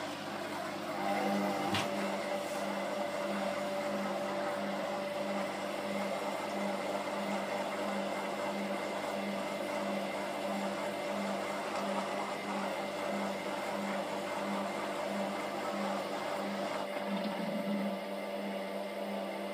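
Candy GODF800 washing machine on its spin cycle with the door open: drum and motor whirring steadily, with a hum that throbs at an even rate. A single sharp knock comes about two seconds in.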